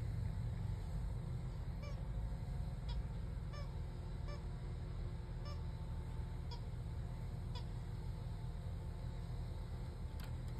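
Soccer-ball squeaky dog toy squeaking as a dog chews it, short squeaks about once a second, over a steady low rumble.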